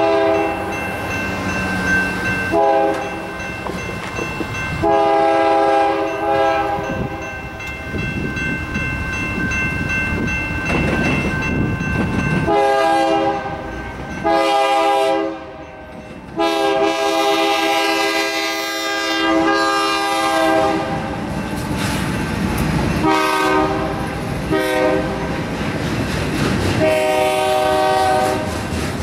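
Diesel locomotive horn on a BNSF Dash-9 (C44-9W) sounding a series of long and short chorded blasts for the grade crossing as the train approaches. Under it, the crossing's Safetran and General Signals electronic bells ring steadily.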